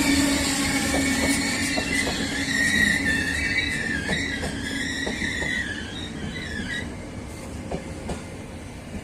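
Passenger train hauled by electric locomotive 388 204 rolling into the station. A wavering high wheel squeal runs through the middle, with scattered clicks of wheels over rail joints, and the whole sound fades away toward the end.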